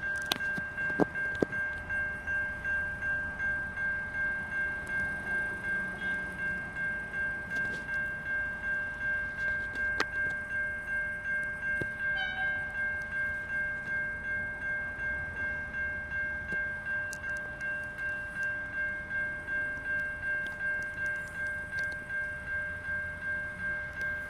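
Level crossing warning bell ringing steadily at about two strikes a second, signalling an approaching train.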